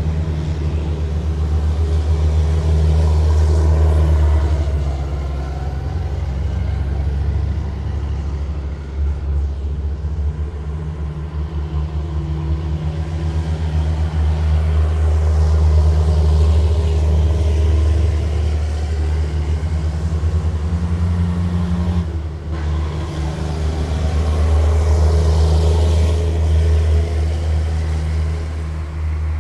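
A column of heavy military vehicles driving past, with a loud, deep, continuous engine rumble that swells and eases as each vehicle goes by.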